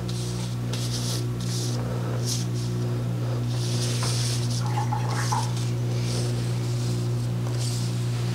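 A steady low electrical hum throughout, with soft slides and rustles of trading cards being handled on a playmat now and then.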